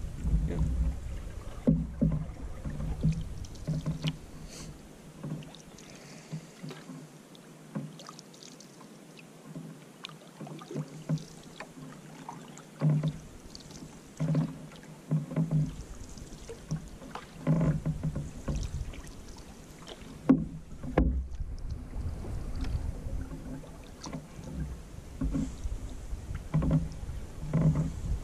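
Canoe being paddled: paddle strokes dipping and splashing in the water, repeating roughly once a second, over a low rumble.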